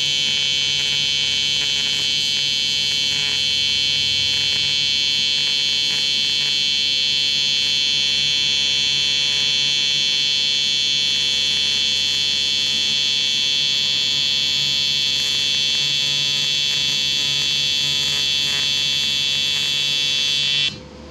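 AC TIG welding arc on aluminum from a PrimeWeld 225X, a loud, steady electric buzz that cuts off suddenly near the end as the arc is broken.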